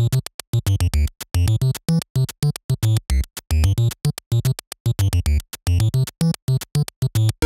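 Background electronic music: a choppy synthesizer pattern that cuts in and out several times a second over a deep bass.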